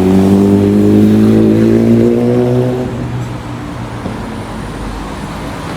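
A road vehicle accelerating: its engine or motor hum rises slowly in pitch for about three seconds, then gives way to a steady rumble of running noise.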